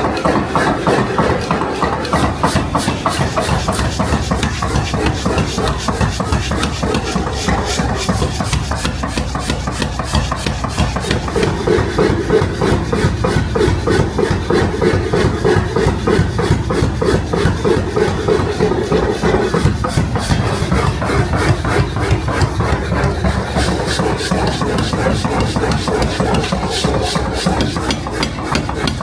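Steady abrasive rasping on steel, with a motor running underneath.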